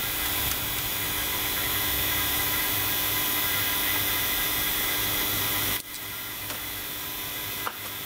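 Vacuum pump running steadily while it evacuates the heat pump's refrigerant circuit: a constant mechanical hum with hiss. The sound drops abruptly about six seconds in and carries on a little quieter.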